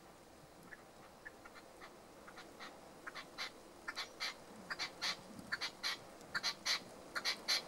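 Red-legged partridge calling: a run of short, harsh notes that start sparse and faint, then come louder and quicker through the second half.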